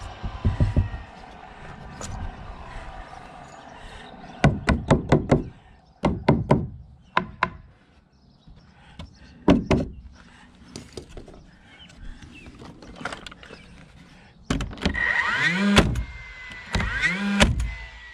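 Knocks and taps on wooden siding boards, including a quick run of about six strikes, as boards are fitted and fastened. Near the end come two short bursts of a small power tool motor whose pitch rises as it spins up.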